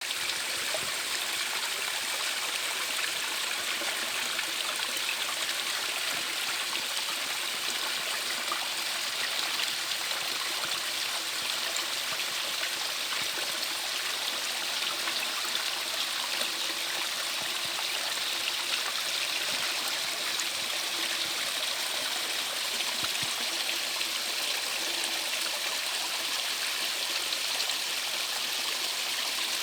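Mountain stream flowing over rocks, a steady rushing and trickling of water.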